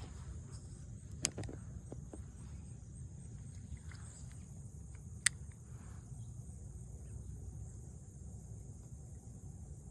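Insects, most likely crickets, droning steadily in a high, even tone over a low rumble. Two short sharp clicks come about a second in and about five seconds in.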